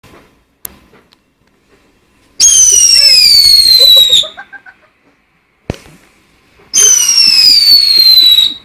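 Two loud whistling fireworks, each a high whistle of about two seconds that slides down in pitch and cuts off sharply. A couple of single sharp pops come before and between them.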